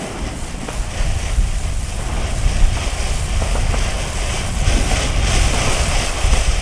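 Ground firework fountain spraying sparks with a steady hiss and a few faint crackles over a low rumble, growing louder about a second in.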